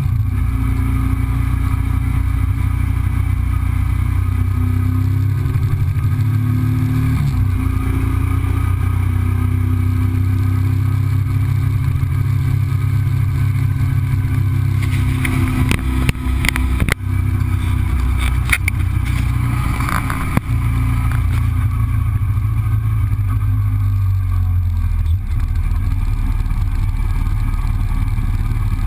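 Yamaha motorcycle's engine running steadily as the bike is ridden, heard from a camera mounted on the bike. The engine note drops about seven seconds in, and brief rattles come through around the middle.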